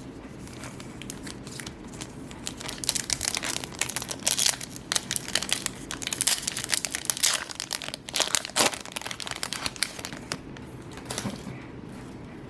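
Yu-Gi-Oh! booster pack wrappers crinkling as they are torn open and handled, a dense irregular crackle that starts about two seconds in and dies away near the end.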